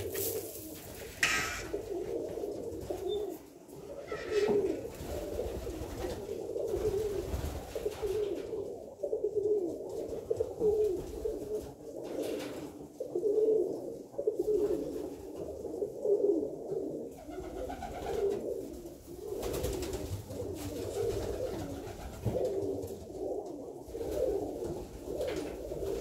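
A flock of Alföldi-Körösi tumbler pigeons cooing continuously, many birds overlapping.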